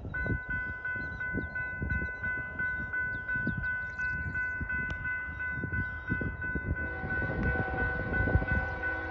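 Railroad grade-crossing bell ringing in quick, even strikes, about three a second. About seven seconds in, the noise of an approaching train builds up beneath it.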